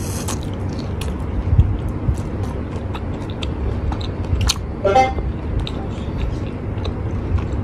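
Close-up chewing and biting of crispy kunafa, with irregular crunchy clicks from the crisp shredded-pastry crust and soft chewing of the cheese filling, over a steady low rumble.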